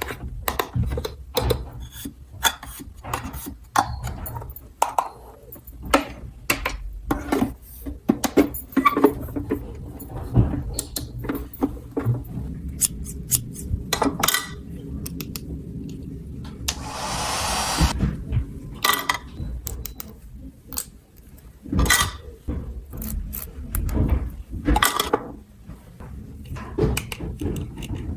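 Small hard toy pieces being handled, with many irregular clicks, taps and knocks. A brief rustling hiss comes about seventeen seconds in.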